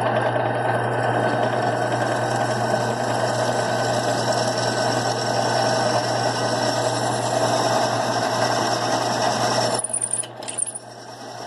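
A power tool running steadily with a constant low hum under a loud noisy whirr. It cuts out sharply about ten seconds in and starts building again near the end.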